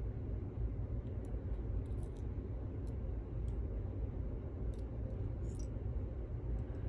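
Faint, scattered small clicks of metal lock parts and tools being handled while the pin tumbler lock is taken apart, over a steady low hum.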